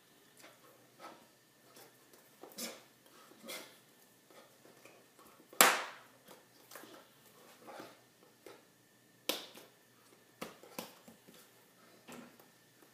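Hands clapping, slapping and brushing against each other and the body while signing: a scatter of short, irregular smacks and clicks, the loudest a sharp clap near the middle and another about three quarters through.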